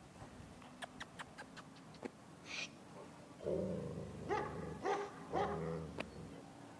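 A dog whining, with three short pitched cries in a row about halfway through, after a few faint clicks.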